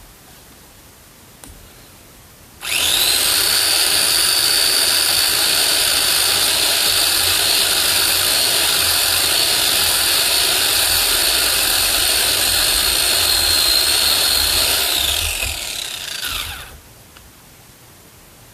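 Electric chainsaw cutting wood. It starts suddenly about three seconds in, runs with a steady high whine for about twelve seconds, then falls in pitch and stops.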